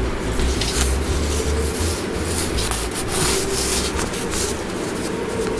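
Paper worksheets rustling and rubbing as they are handled and shuffled close to the microphone, in irregular scrapes with a faint steady hum beneath.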